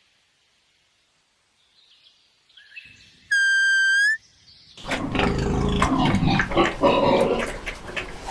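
Animal calls: one clear, high, whistle-like call lasting about a second, then from about halfway on a loud, noisy clamour of farm animals calling together.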